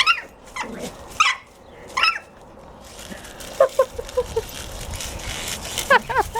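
A dog whining and yipping in excitement: three short high-pitched whines in the first two seconds, a quick run of short yips about halfway, and more whines near the end.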